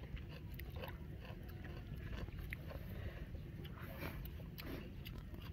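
Quiet chewing and eating sounds: scattered small clicks and crackles of someone eating shrimp, over a steady low rumble.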